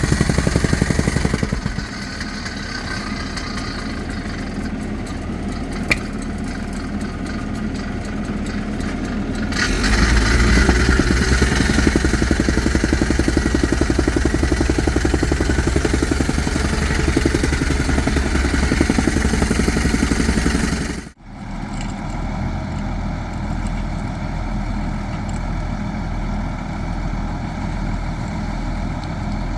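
Engine of a piece of excavation equipment running steadily, with abrupt changes in sound about a third and two-thirds of the way through where separate clips are joined.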